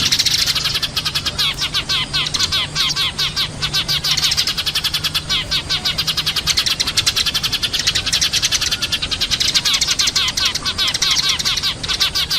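Eurasian tree sparrows chirping in a dense, rapid, unbroken stream of overlapping short chirps, over a steady low hum.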